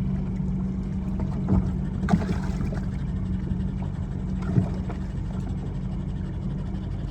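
Steady hum of a boat motor running, with a few sharp knocks at about one and a half, two and four and a half seconds in.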